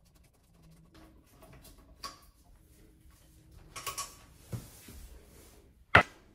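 Screwdriver working the hinge screws of a toilet seat loose, with faint scattered clicks, scrapes and creaks that grow busier in the second half. A single sharp knock comes near the end.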